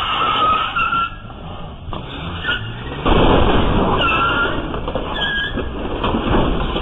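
Car engine and tyre noise with a few short squeals, growing suddenly louder about three seconds in.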